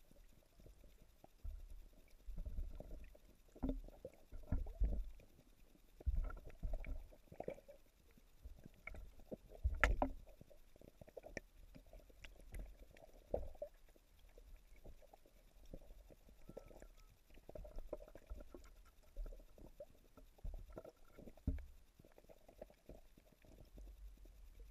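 Muffled underwater rumbling and irregular soft knocks of pond water moving around a submerged camera, with one sharper knock about ten seconds in.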